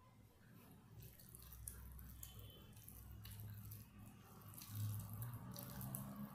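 Fingers mixing and squeezing curry-soaked rice on a plate: soft wet squishing and crackling of the grains, over a faint low hum.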